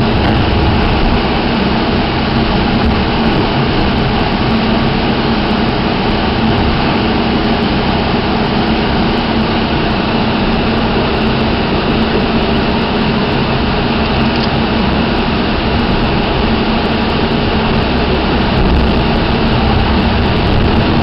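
Staten Island Railway train running at speed, heard from inside the car: a steady loud rumble of wheels on rail with a constant low hum underneath.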